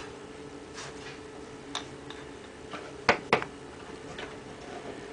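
Small clicks and taps of a cable and fingers against metal brackets and parts in a pinball machine as a wire is threaded through a hole in the metal cannon base, with two sharper clicks about three seconds in, over a faint steady hum.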